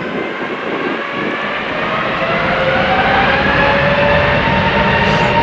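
Jet airliner engines running with a loud rushing noise and a whine that rises slowly in pitch and grows louder: the engines are spooling up.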